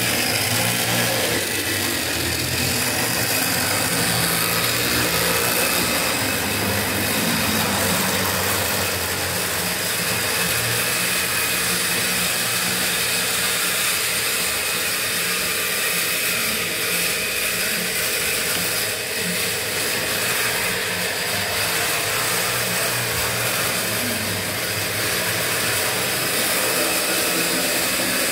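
Model train running along the layout's rails: a steady mechanical whir and rumble of the model locomotive's motor and wheels on the track.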